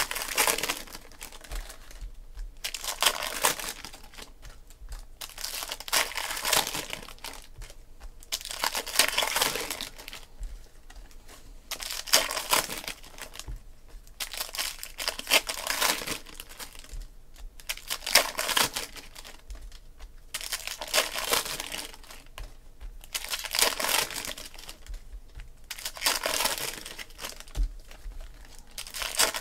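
Foil trading-card pack wrappers being torn open and crinkled by hand, in about ten separate bursts roughly every three seconds, with the cards handled between them.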